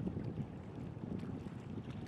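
Wind rumbling on the microphone, with waves washing on the shore.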